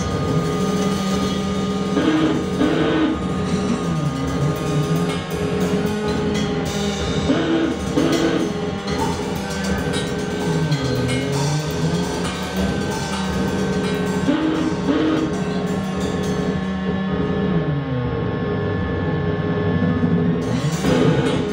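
Live music from modular synthesizer, bass guitar with effects and drum kit. Low droning tones swoop down and back up about every six seconds under steady higher drones, with drum and cymbal hits scattered through.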